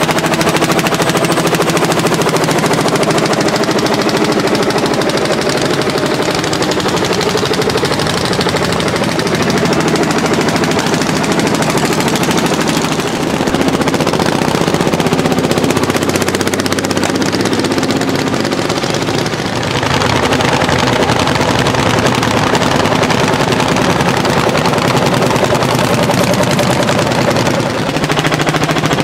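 Landini L55 hot-bulb tractor's single-cylinder two-stroke engine working hard under full load while pulling a plough. Its exhaust is a loud, fast, even string of sharp beats. The tone changes suddenly a few times.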